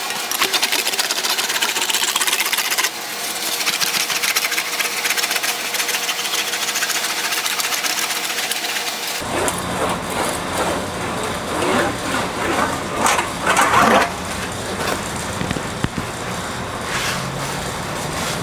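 Sheet-metal fender panel being run back and forth through an English wheel, a fast, even rolling rattle. About nine seconds in it cuts off abruptly, giving way to irregular metallic clatter from the panel being handled.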